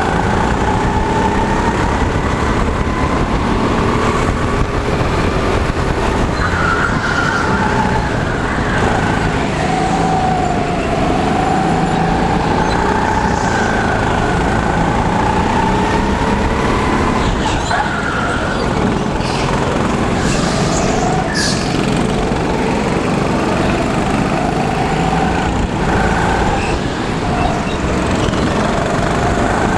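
Go-kart engine running hard, its pitch rising and falling with the throttle through the corners, with other karts' engines around it.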